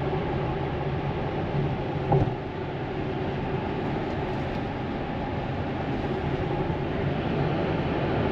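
Steady tyre and road noise inside a Tesla Model X cabin at road speed, with one brief thump about two seconds in.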